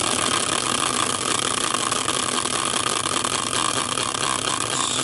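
Hand-spun industrial caster wheel turning freely on its axle, whirring steadily without slowing.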